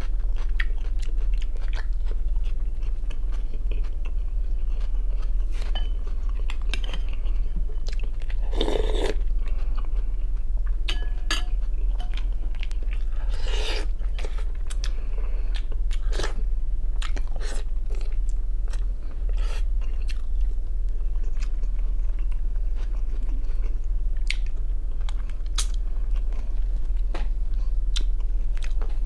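Close-up chewing and biting as meat is gnawed off a chicken drumstick: wet mouth clicks and crunches scattered through, a few of them louder, over a steady low hum.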